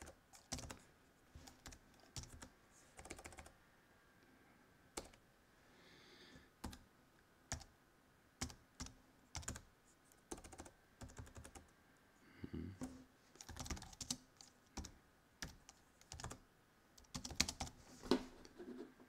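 Computer keyboard typing: irregular keystrokes in short runs with pauses between, the loudest few near the end, as a terminal command is typed and then deleted.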